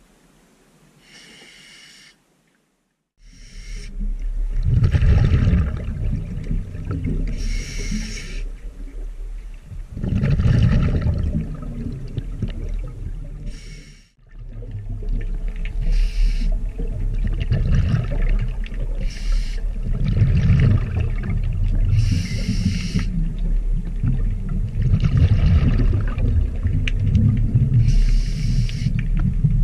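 Scuba diver breathing through a regulator underwater: short hissing inhalations every few seconds alternate with longer bursts of exhaled bubbles. There is a brief silent break about two seconds in.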